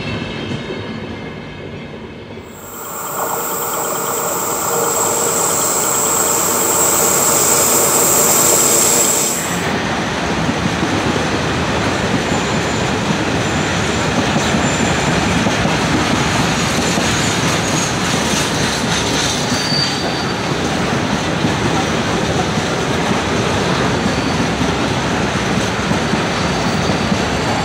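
Trains passing at close range: wheels rumbling on the rails, then a shrill steady squeal from about 3 to 9 seconds, then a train rolling past with a steady rumble and clatter of wheels over rail joints.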